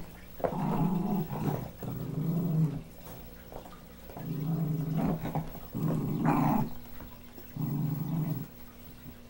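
Small dog growling: about five short, low growls, each under a second long, with short pauses between them.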